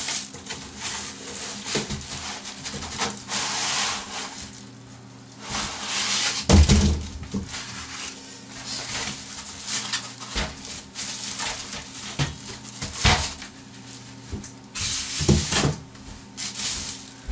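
Plastic wrapping and foam packaging rustling and creaking as a boxed PC case is handled, lifted out of its cardboard box and set down. A dull thump about six and a half seconds in is the loudest sound, with a few lighter knocks later.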